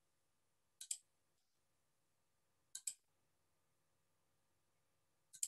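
Three quick double clicks of a computer mouse, about two seconds apart, over near silence.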